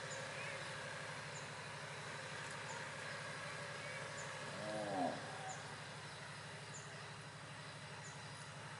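Faint outdoor ambience: a steady low hum with small high chirps repeating every second or so. One short call rises and falls in pitch about halfway through.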